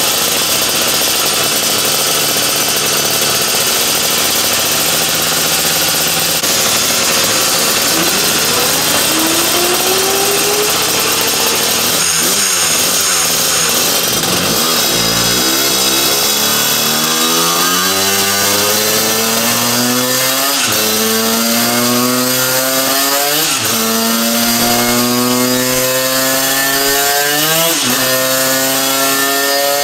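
Division 1 superkart's 250cc twin-cylinder two-stroke engine running on a dyno. Its note climbs and then falls sharply at each gear change, repeating about every three seconds in the second half: early upshifts on a power run.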